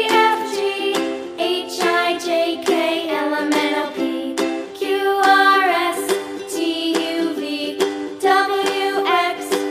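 Background music: a light, plucked-string tune with a running melody of short notes.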